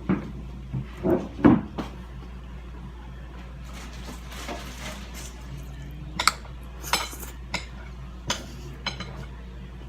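An eating utensil scraping and clinking against a plate of food as it is scooped up, with a few sharp clinks in the second half.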